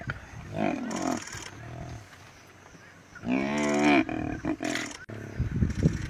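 Deep animal growls and moaning calls, several in a row, at a male lion's kill of a hippo; the longest and loudest comes a little past the middle.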